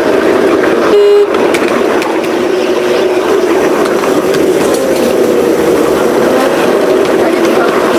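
5-inch gauge miniature locomotive running along the track: a steady rumble of wheels on rail with a whine that wavers in pitch. About a second in, a short, loud, steady tone sounds for a fraction of a second.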